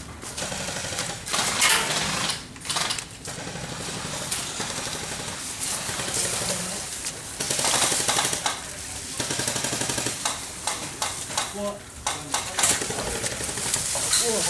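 Airsoft electric guns firing on full auto: fast mechanical rattling bursts of rapid clicks, several overlapping, with some bursts louder than others.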